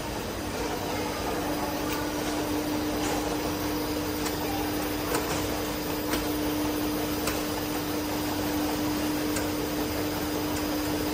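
Packing-line conveyor machinery running: a steady motor hum with one constant pitched tone over broad machine noise, with a few light clicks scattered through.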